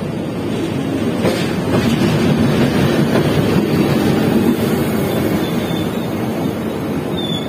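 SNCFT 040 DM diesel locomotive passing close by, followed by its passenger coaches rolling past on the rails. The noise swells as the locomotive draws level and stays loud as the coaches go by.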